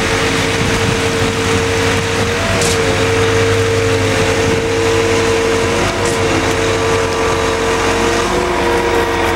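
Concrete pump truck's engine running steadily while concrete is pumped out through the hose, its tone wavering briefly about every three seconds.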